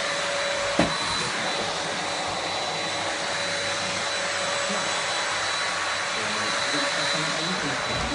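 Electric vacuum cleaner running steadily with a high whine, and a single knock a little under a second in.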